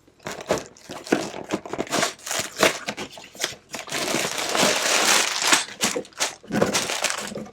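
A cardboard LEGO set box being opened, with scattered short scrapes and clicks, then from about four seconds in a dense crinkling of the plastic parts bags being handled.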